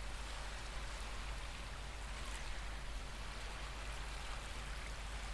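Recorded ocean waves washing as a steady, soft background hiss, with no distinct breaks.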